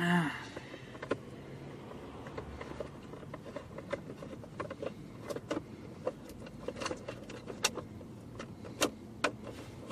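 Scattered small clicks and taps of hand-tool work on a car's plastic steering column shroud as its last screws are undone. It opens with a brief loud sound that falls in pitch.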